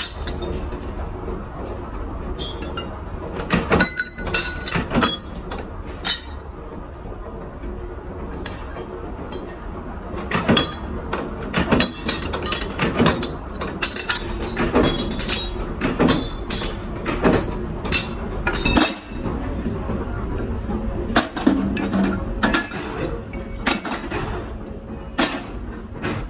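Irregular metallic clinks and knocks from hand work with metal parts, over a steady low machine hum.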